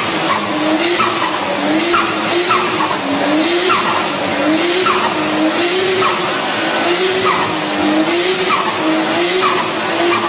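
A car driven hard with its tyres squealing: a wavering squeal under short falling sweeps that repeat about every half second.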